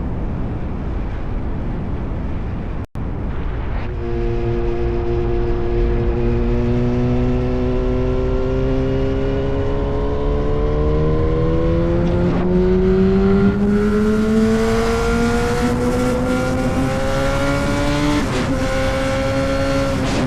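Sport motorcycle engine and exhaust on the move. A low rumble comes first; after a brief dropout about three seconds in, the engine note comes in and climbs slowly and steadily in pitch under acceleration, with short breaks about twelve and eighteen seconds in.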